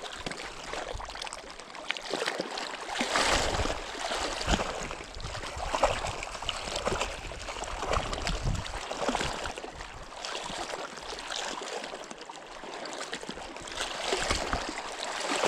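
A hooked largemouth bass splashing at the surface as it is reeled in on a baitcasting reel, with irregular knocks and rustles throughout.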